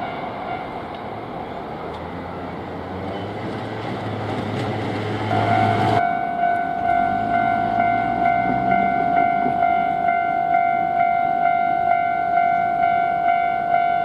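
A Hankyu Kyoto Line train passing over a level crossing, a loud rushing rumble with a low motor hum rising in pitch. About six seconds in the sound switches abruptly to the crossing's electronic warning bell, ringing steadily at just under two strikes a second.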